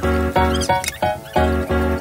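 Background music: a bouncy tune of short, evenly spaced chords over a bass note, about three a second.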